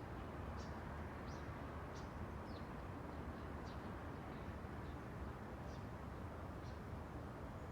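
Steady outdoor rush of wind and distant traffic, with a small bird chirping over it in short high notes about once or twice a second.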